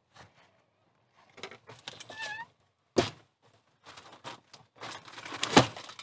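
Plastic sheeting rustling and crinkling, with knocks of wood and footsteps, as a person squeezes through the log doorway of a dugout. A brief squeak comes about two seconds in, a sharp knock at about three seconds, and the loudest thud near the end.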